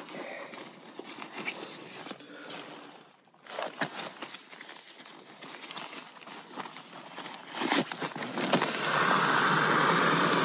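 Nylon fabric rustling and crinkling as an inflatable camping pillow in its pillowcase and a sleeping bag are handled. Near the end a loud, steady hiss comes in and lasts a couple of seconds.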